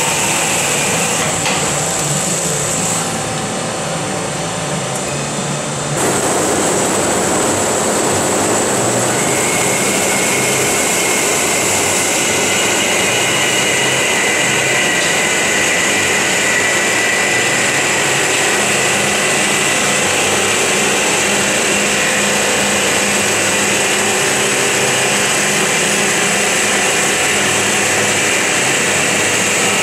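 FMB Omega semi-automatic hydraulic band saw running on a solid-bar sample cut: a steady machine sound that steps up and gets louder about six seconds in, then holds steady, with a high steady tone coming in a few seconds later.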